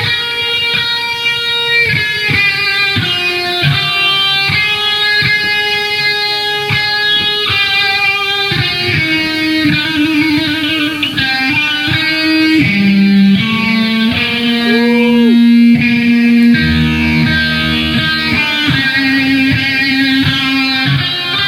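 Background music led by electric guitar, with a bass line and a steady beat.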